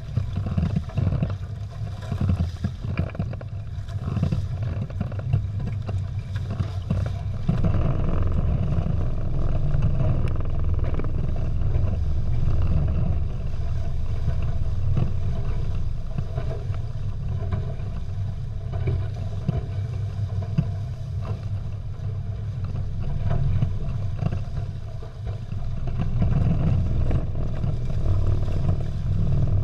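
Wind rumbling on the camera microphone and water rushing and slapping along the hulls of a Prindle 16 catamaran under sail, as a steady low noise that swells a little partway through.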